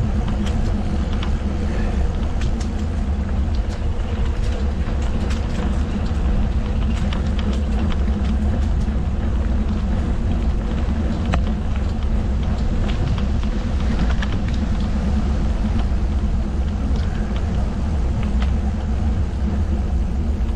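Steady low rumble of a mountain bike rolling along a trail, with wind on the microphone and many light clicks and rattles scattered throughout.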